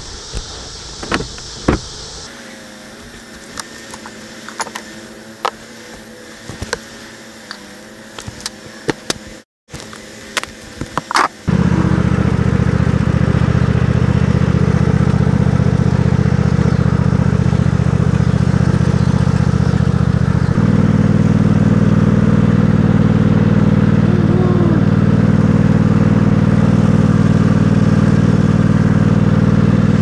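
Wooden hive boxes knocking and clattering as they are handled and set down, then a riding lawn tractor's engine running steadily and loudly as it tows the loaded wagon, its tone shifting about two-thirds of the way in.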